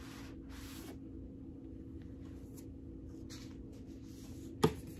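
Faint rustling and scraping of cardboard as a box set's book-style disc wallet is slid out of its slipcase and handled, with one sharp tap a little over four and a half seconds in. A steady low hum runs underneath.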